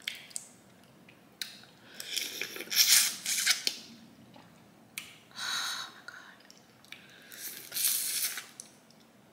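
Boiled crawfish being peeled by hand and eaten: shells cracking and tearing, with mouth sounds, in three main bursts with scattered clicks between.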